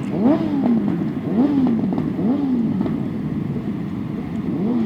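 Off-road motorcycle engines revving hard, the throttle opened in repeated bursts, each a quick climb in pitch that drops back, about once a second, with more engines running underneath.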